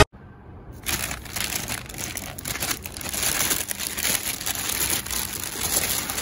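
A plastic shopping bag crinkling and rustling as hands open it and rummage inside, starting about a second in.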